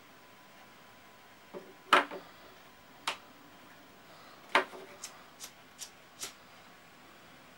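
A hand-held lighter struck again and again, about eight sharp clicks. The two loudest come about two seconds and four and a half seconds in, followed by a quicker run of four fainter ones, while trying to light a buddy burner of wax-soaked cardboard in a tin.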